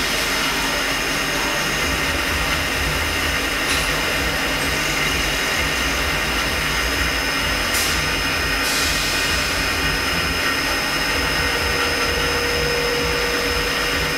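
Mori Seiki NL3000 CNC lathe running C-axis milling: the live-tool end mill spinning against the part with a steady machine whine made of several high tones. A few short hisses come through, and a lower tone joins near the end.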